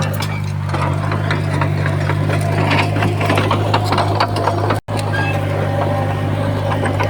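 Heavy construction machine's diesel engine running steadily, with metallic clanking and rattling over it. The sound cuts out for an instant about five seconds in.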